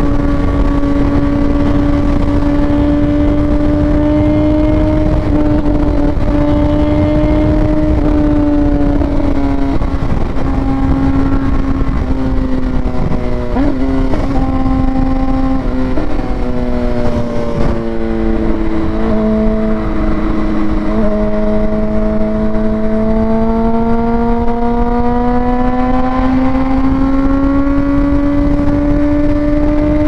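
Sportbike engine running steadily at road speed over a steady low rush. About a third of the way in, more engine tones join with quick pitch jumps like gear changes. The main engine note then drops and climbs slowly as the bike gains speed.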